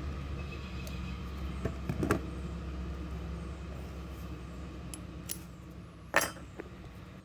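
Power tools and bits being handled, giving a few hard clicks and clinks, the loudest about six seconds in, over a steady low hum.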